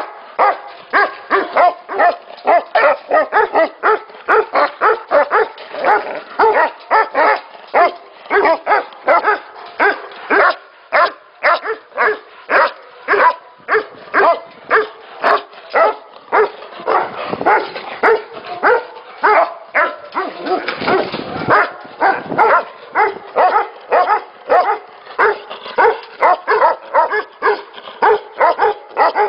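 Tibetan mastiffs barking without a break, short deep barks coming about two a second. A rushing noise sits underneath for a few seconds past the middle.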